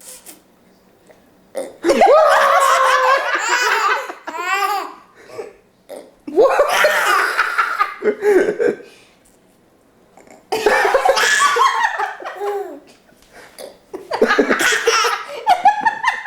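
A 15-month-old toddler making his funny vocal noise over and over, in several bursts a few seconds long with short pauses between, mixed with laughter.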